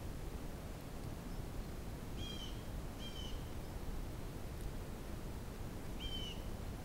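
A small bird chirping three times: two short, slightly falling calls about a second apart, then one more about six seconds in, over a steady low background rumble.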